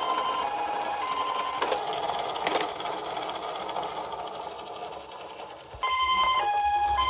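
Toy ambulance's electronic two-tone hi-lo siren, two notes alternating about once a second, over a rattling whir. It fades slowly, then comes back suddenly louder near the end.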